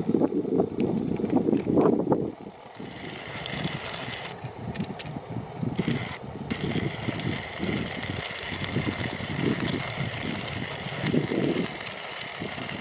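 A vehicle running, a fluctuating low rumble, louder for the first couple of seconds and then steadier.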